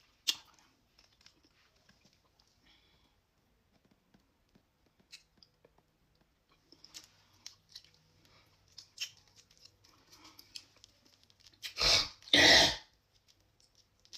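Soft chewing and small mouth clicks from someone eating spicy crab, then two loud coughs in quick succession about twelve seconds in.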